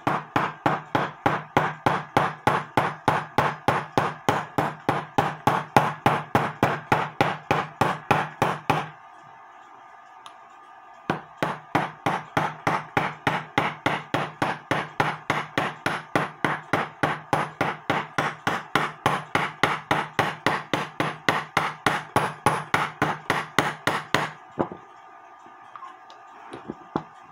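Small hammer tapping rapidly and evenly, about three or four strikes a second, peening over a nail stub in a clock's mainspring barrel to form a new catch for the spring, with a socket supporting the barrel. The tapping pauses for about two seconds a third of the way in, then carries on and stops a few seconds before the end.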